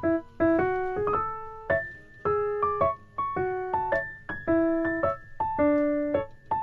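Background piano music: a gentle melody of separate notes over soft chords, each note fading after it is struck.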